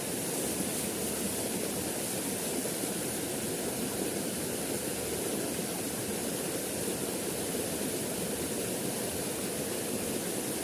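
Small river's flowing water, a steady rush of noise.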